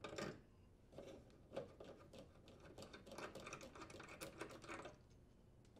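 Faint, irregular metallic clicks and scraping of slip-joint pliers and a threaded hose coupling being loosened and unscrewed from a cold water faucet, stopping near the end.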